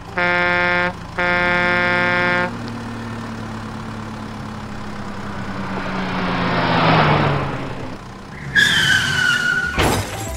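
Cartoon vehicle sound effects: a horn honks twice, then an engine-like rushing noise swells and fades, followed by a brief high squeal that dips slightly in pitch, and a sharp knock near the end.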